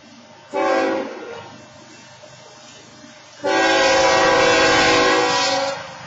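BNSF diesel locomotive's air horn sounding for a grade crossing: a short blast about half a second in, then a long blast from about three and a half seconds until just before the end. The engineer is blowing it because the crossing's wayside horns had timed out.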